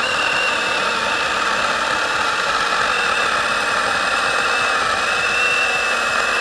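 Makita MUC101D 18V cordless handheld chainsaw cutting slowly and without a stop through a small log: a steady, high motor whine under the rasp of the chain in the wood, the saw never bogging down.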